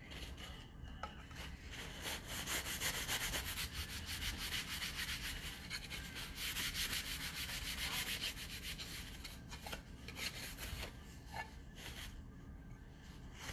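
Wet paper towel rubbed quickly back and forth over a chalkboard surface, wiping it clean. The scrubbing eases off near the end.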